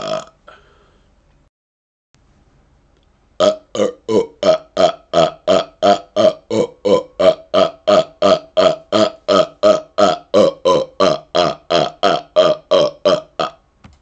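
A man burping rapid-fire: after a short pause, a long run of about thirty short, evenly spaced burps at roughly three a second, starting about three seconds in and stopping just before the end.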